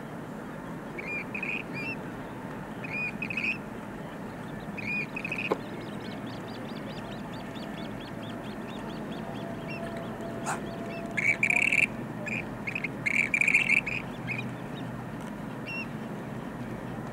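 Western grebes calling: short high squeaky notes, then a rapid run of thin rising-and-falling squeaks, and later several louder, harsh rasping calls, over a steady low hiss of open-air background noise.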